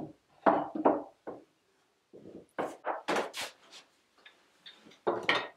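Hand tools, wooden planes among them, being set down and shifted on a wooden shelf: a run of wooden knocks and clatters in three bunches, the last about five seconds in.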